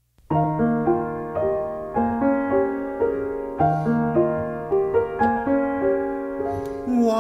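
Solo piano introduction to an art song: a gentle figure of sustained, overlapping notes and chords struck about every half second, starting just after the beginning.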